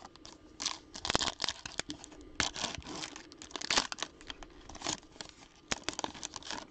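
A foil trading-card pack being torn open by hand: the wrapper tears and crackles in a dense run of irregular short crackles.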